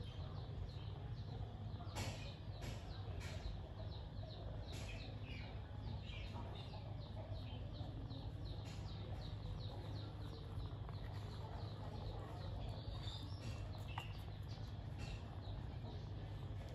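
Small birds chirping in quick repeated series over a steady low hum, with occasional sharp clicks.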